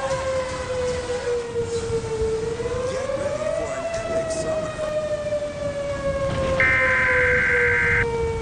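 Outdoor tornado warning siren giving one long, slowly wavering wail: the pitch dips, rises about three seconds in, then slowly falls. About two-thirds of the way through, a harsh buzzing EAS header data burst breaks in over it for about a second and a half.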